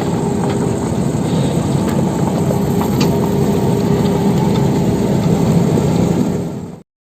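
Sumitomo SH75 mini excavator's diesel engine running steadily, with light scattered clicks of machinery; it cuts off abruptly near the end.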